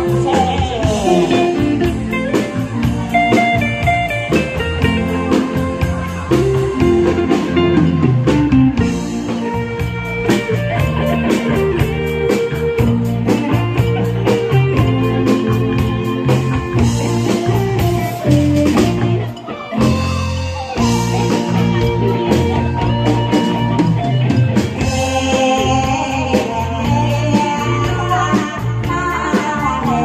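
A song performed on stage: electric guitar and a steady beat, with a woman singing into a microphone.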